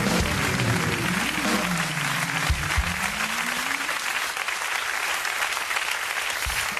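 Studio audience applauding steadily, with the house band's entrance music audible under it for the first few seconds before it fades out.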